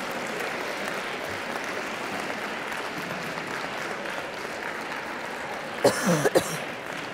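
Audience applauding steadily. About six seconds in, a couple of short, loud cries with falling pitch break over the clapping.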